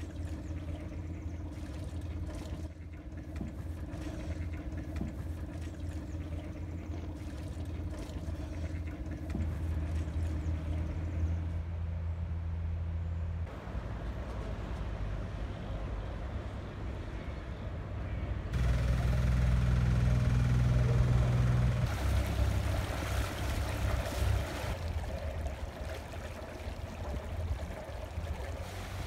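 Steady low engine drone in several short clips cut together, its pitch and loudness changing suddenly at each cut, loudest for a few seconds about two-thirds of the way through.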